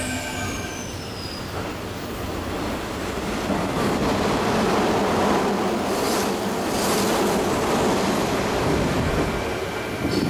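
Hanshin 9000-series electric train running through the station at speed without stopping: a steady rush of wheels on rail that swells to its loudest about four seconds in and eases near the end. A high whine falls in pitch over the first second or so.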